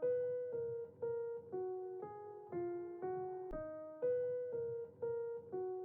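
Background music: a keyboard riff of single held notes, struck about twice a second and fading after each strike, repeating a four-second phrase, with a soft low thump about three and a half seconds in.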